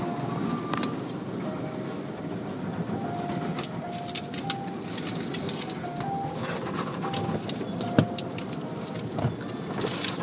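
Automatic car wash heard from inside the car: water spray and cloth wash strips washing over the windshield and roof, with scattered knocks and a run of short squeaky tones at changing pitch.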